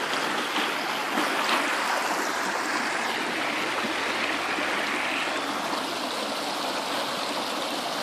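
Fast-flowing creek running over rocks, a steady, even rush of water.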